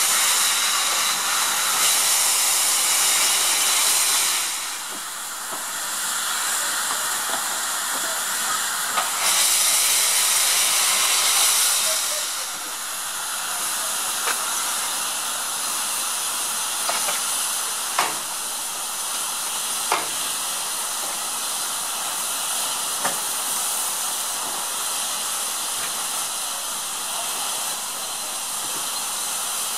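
Steam hissing from the open cylinder drain cocks of NER Class J72 0-6-0T tank engine No. 69023 as it moves slowly through the yard. The hiss swells in two long blasts in the first half, and a few sharp metallic clicks come later.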